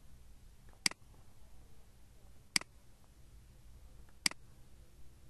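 Computer mouse button clicking three times, about a second and a half apart, as a right-click and menu selections are made.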